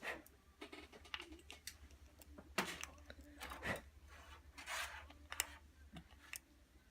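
Scattered small metal clicks and ticks, with a few brief scrapes, from pliers bending a fine orthodontic wire clasp.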